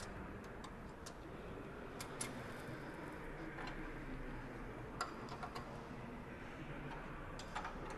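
Spanner tightening the bolts on a Bauer separator's mouthpiece: faint metal clicks and ticks, in small groups of two or three at uneven intervals.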